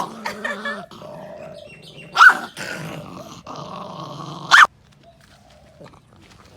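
Dog growling over its food as a parrot comes close to it, with sharp loud barks or snaps near the start, about two seconds in and about four and a half seconds in. The growl cuts off suddenly after the last one.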